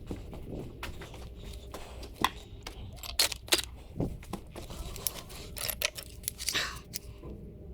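Hand tools clicking and clinking on metal, in irregular sharp strikes over a low steady hum.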